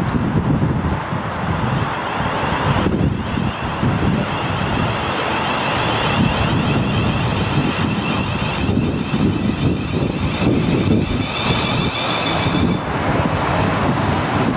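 Siemens Desiro Class 450 electric multiple unit approaching and running past close by, wheels rumbling on the rails, with a faint high whine from its traction motors through most of the pass.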